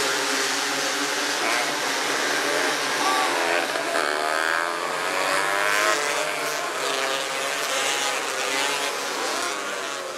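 Several 270cc micro sprint cars racing together, their engines revving, with overlapping engine notes rising and falling as the cars go through the turns and pass.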